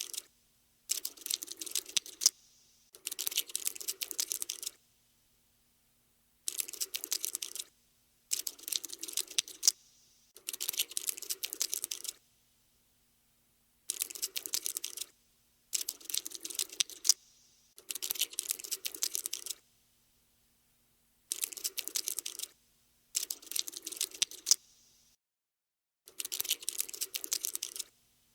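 Cockroach scuttling sound effect: rapid, dry clicking in bursts of one to two seconds, about eleven of them with short silent gaps between.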